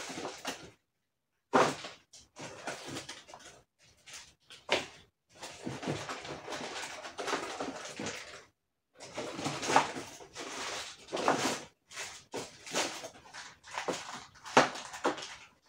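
Someone rummaging through small engine parts and hardware: irregular rustling and clattering with a few sharp clicks and knocks, broken by short silent gaps.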